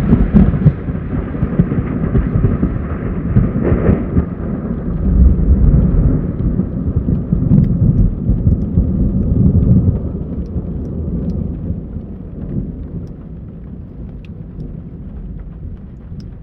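Thunder rolling in a long low rumble, loud for about the first ten seconds and then fading away, with a few faint raindrop ticks near the end.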